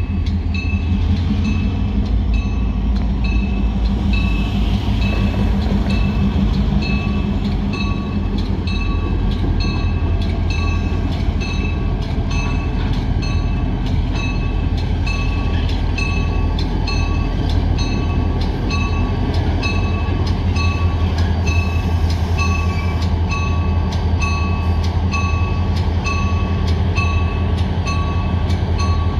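EMD GP38 diesel locomotive, with a second unit coupled behind, rolling slowly closer with its engine rumbling steadily. The locomotive bell rings about once a second throughout.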